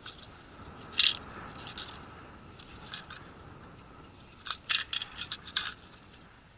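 Crisp clicks and crunches on ice: one sharp crack about a second in, then a quick run of five or six sharp clicks about a second before the end.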